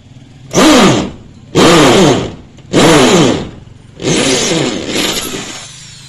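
Handheld electric drill run in four loud bursts as it drills, the motor pitch swinging with each squeeze of the trigger. The last burst is longer and tails off.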